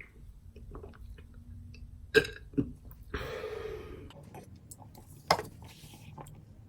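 A man burping, brought on by drinking carbonated ginger ale: short, sharp burps about two seconds in and again past five seconds, with a longer, breathier one just after three seconds.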